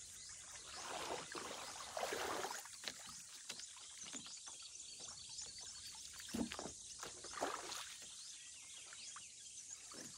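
Soft water swishes and splashes as a small boat is pushed off into shallow lake water and paddled away: a few separate paddle strokes, a second or more apart.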